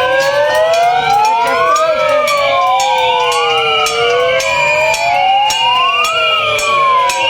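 Several sirens wailing at once, their pitches rising and falling slowly and out of step, with short steady high tones and rapid clattering bangs throughout.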